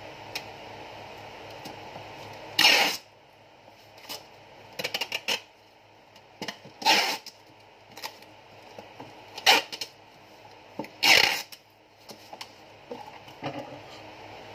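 Packing tape being pulled off the roll in a series of short, loud rips as a cardboard box is taped shut, with hands pressing the tape down between pulls. The loudest rips come about three, seven, nine and a half and eleven seconds in.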